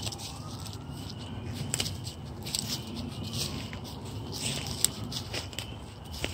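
Outdoor night ambience: irregular light crackles and clicks over a low, steady rumble.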